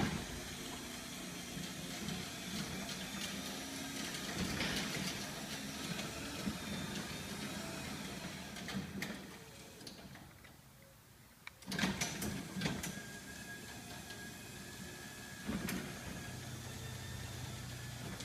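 Chain-drive garage door opener running as the door travels, a steady mechanical hum for about ten seconds that then dies away. About twelve seconds in come a few clicks and knocks, followed by a quieter steady hum with a thin whine.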